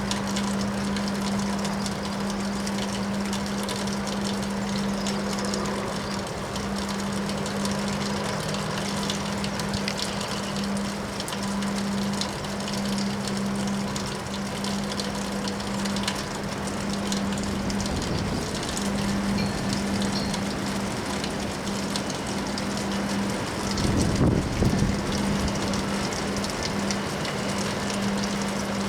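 Windstorm: steady rushing noise of wind, with a constant low hum underneath and a louder, deeper surge about 24 seconds in.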